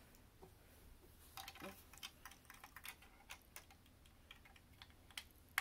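Faint, irregular clicking of plastic Lego bricks being handled and fitted together by hand, with a sharper click near the end.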